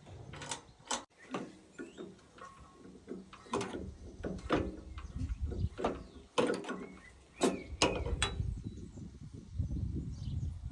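Irregular mechanical clicks and clunks, as of metal parts being moved or handled, with a low rumble between them.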